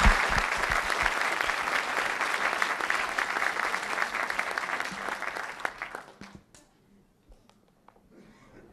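Audience applause, many hands clapping, fading away and ending about six seconds in; a few faint knocks follow.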